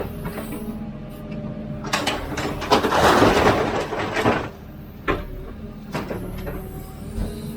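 Hidromek 102B backhoe loader's diesel engine running steadily while digging. A loud rushing noise lasts about two seconds in the middle, and a few sharp knocks follow near the end.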